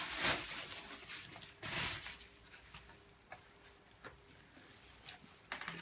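Plastic bag and bubble wrap rustling and crinkling as a camera is unwrapped: two louder rustles in the first two seconds, then quieter scattered crinkles and small ticks.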